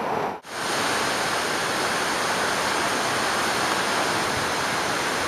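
Steady rushing of a mountain waterfall. It fills in after a brief dip about half a second in.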